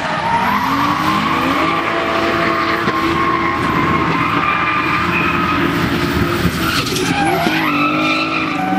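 Toyota Supra drift cars running at high revs while their rear tyres screech and spin, sliding sideways. About seven seconds in, the engine pitch drops and then climbs again.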